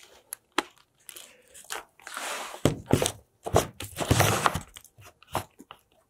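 Handling noise from a camera being carried and set down on a workbench: scattered knocks, clicks and rustles, with longer scraping bursts about two seconds in and again around four seconds.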